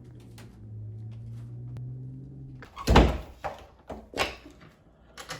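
A low steady hum that stops, then a single heavy thump about three seconds in, followed by a few sharper knocks.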